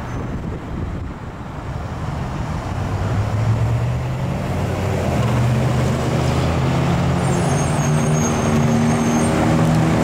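Road traffic at an intersection: a steady wash of passing cars, then from about three seconds in the low, steady engine note of a large vehicle grows louder and holds. A brief high squeal comes about three-quarters of the way through.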